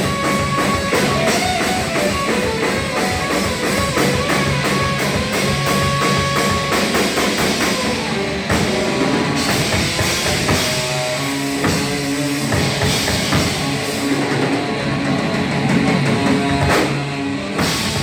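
Hardcore punk band playing live: distorted electric guitars over a fast, pounding drum kit, with no singing, the music staying loud and dense.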